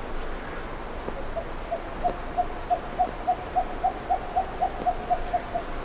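A run of about sixteen short hooting notes at one steady pitch, about three and a half a second, starting about a second and a half in and stopping near the end. A few faint, high, short chirps sound above it.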